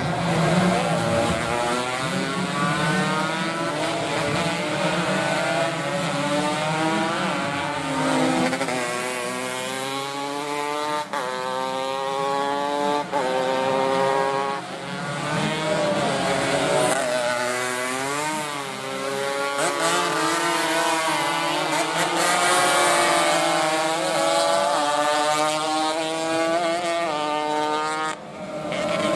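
Several racing motorcycles revving hard as they pass, their engine notes overlapping, each climbing in pitch, dropping and climbing again, with one bike sweeping sharply up and down in pitch as it goes by about two-thirds of the way in.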